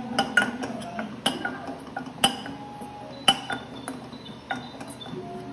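A metal utensil clinking against steel cookware while cooking. The clinks are irregular, with a sharp one roughly every second, and some leave a short ringing tone.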